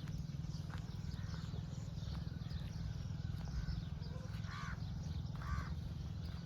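Wind buffeting the microphone, with two short animal calls about a second apart about two-thirds of the way through.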